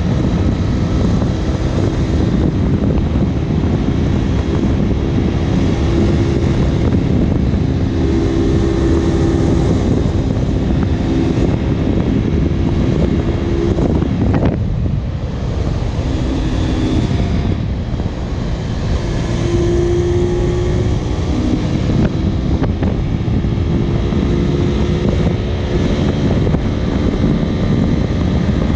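Honda VTR250's 90-degree V-twin engine running as the motorcycle rides along, its note rising and falling with the throttle, with a brief let-off and pitch change about halfway through and another short dip a few seconds later. Wind rushes over the microphone underneath.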